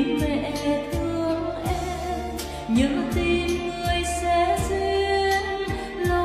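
A woman singing a melody into a microphone over an accompanying music track with a steady beat.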